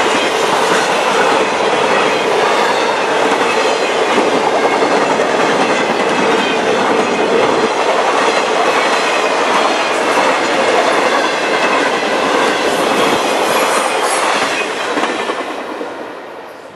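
A freight train of trailers on flatcars rolling past at speed, its steel wheels clattering over the rail joints, with a steady tone running under the clatter. The sound falls away near the end as the last car goes by.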